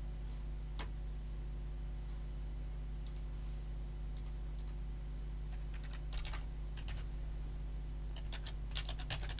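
Typing on a computer keyboard. A single click about a second in and a few scattered keystrokes are followed by a quicker run of keystrokes in the last few seconds. A steady low hum sits under it all.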